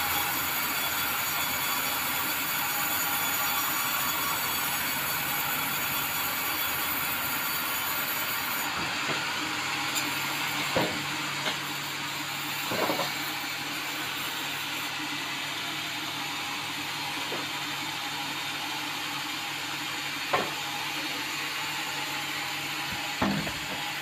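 Sawmill log bandsaw running steadily and sawing through red meranti timber. A few sharp knocks stand out, about eleven, thirteen and twenty seconds in.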